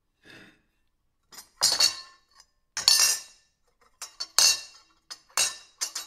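Fork, knife and spoon clinking against a plate: a faint scrape near the start, then about seven sharp metal clinks at irregular intervals, each ringing briefly.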